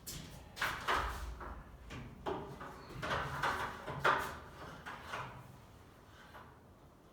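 A series of knocks and scraping clatters, about half a dozen of them, dying away about six seconds in.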